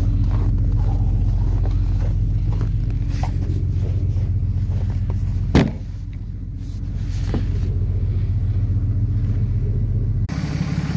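Tow truck engine running steadily with a low hum while pulling a vehicle on its wheel lift. A single sharp clunk comes about halfway through, after which the engine sound dips and builds back up.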